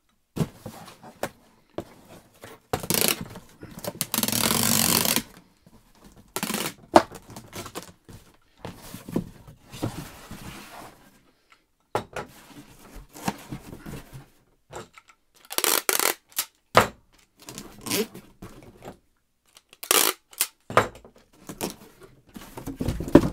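Tape being pulled off the roll in several rasping strips and pressed onto a cardboard box, with clicks and knocks from the box being handled. The longest, loudest pull comes about four seconds in.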